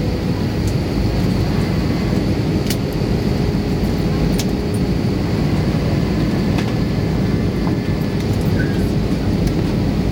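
Steady cabin noise of an Airbus A320's jet engines and airflow during the landing approach with the flaps extended. A faint steady hum runs through it and fades out near the end, and a few small ticks come through.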